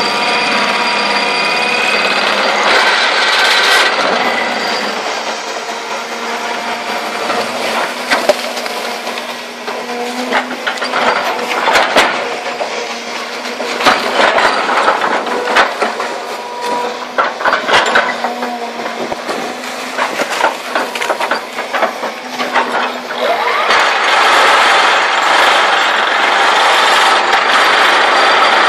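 SVR30 vibro ripper on a 30-ton-class Volvo excavator working rock: a steady, loud mechanical buzz of the vibrating ripper and the machine. Through the middle stretch this gives way to many irregular sharp cracks and knocks of rock breaking and shifting. The steady buzz comes back strongly near the end.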